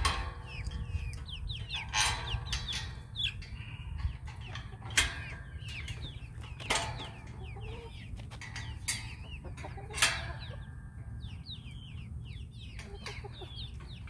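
A flock of chickens clucking, a stream of short calls throughout, with several sharp knocks or clicks in between.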